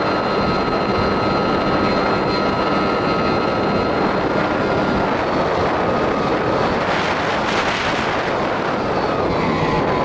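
Onboard sound of a Skywalker X-8 flying wing in flight: the propeller motor's steady whine under heavy wind rush on the microphone. The motor pitch drops a little after about five seconds and again near the end, and the wind noise swells around seven to eight seconds.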